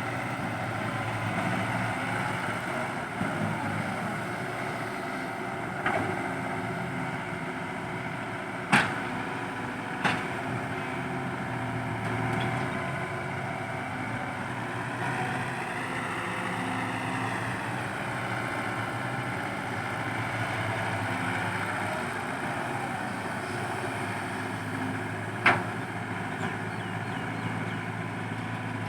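CAT 312B hydraulic excavator's diesel engine running steadily while it digs and loads, its pitch rising and falling once around the middle. A few sharp clanks stand out, the loudest about nine seconds in and another near the end.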